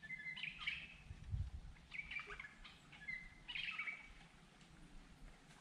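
Bird calling from the riverside forest: three short bursts of chirping, a second or so apart, faint over a low background rumble.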